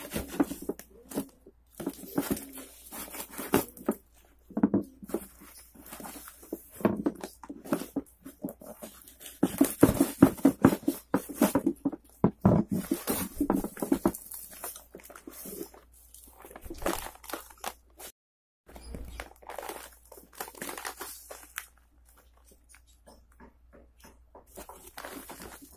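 Packing tape and a cardboard parcel box being cut with a knife and torn open, an irregular run of ripping and crackling that is busiest around ten to fourteen seconds in and thins out afterwards.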